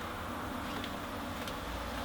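Steady low hum and faint hiss of room background, with a couple of faint clicks.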